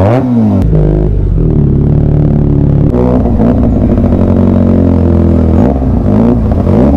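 Benelli TNT 300's parallel-twin engine, heard from on the bike while riding slowly. The revs fall away at the start, step up about three seconds in, and are blipped up twice near the end.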